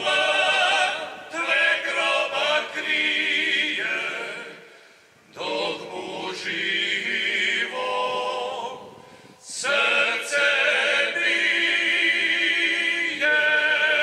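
Male vocal group singing a cappella in several-part harmony, in phrases with short breaks about five and nine and a half seconds in, ending on a long held note.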